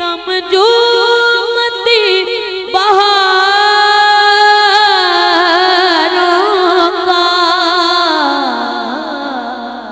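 A boy's voice singing a naat through a microphone, one long drawn-out phrase of held notes with wavering ornaments that step up and down in pitch. Near the end it slides down and fades.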